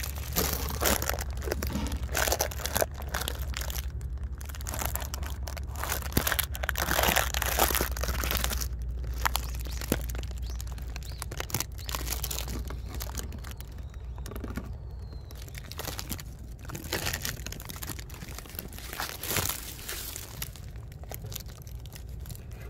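Irregular crackling, scraping and rustling of a camera being handled inside a drainage pipe, rubbing against the pipe wall and dry leaves, with many sharp clicks over a low steady hum.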